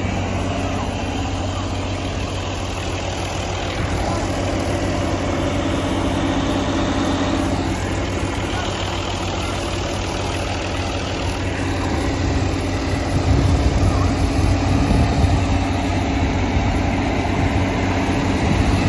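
Combine harvester's diesel engine running steadily at a constant pitch. It grows louder and heavier about two-thirds of the way through.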